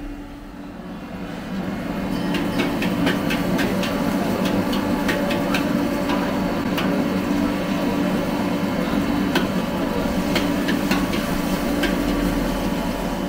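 A metal spatula clanks and scrapes irregularly against a wok as char kuey teow is stir-fried over a charcoal fire, over a continuous sizzle of frying and a steady low hum.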